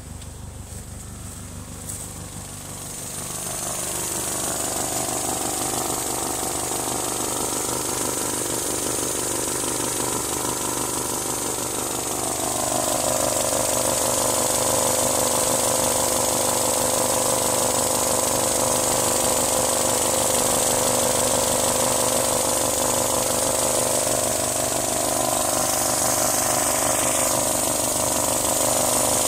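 Mazdaspeed Protege's turbocharged four-cylinder engine running steadily, with a loud hiss and a whooshing noise over it that swells a few seconds in, drops lower in pitch about halfway and rises again near the end. It is a weird noise from the engine whose cause is unknown.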